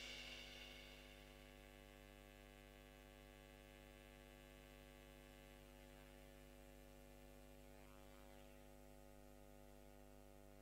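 Near silence after the music ends: the last of its reverberation dies away in the first second, leaving only a faint, steady electrical hum.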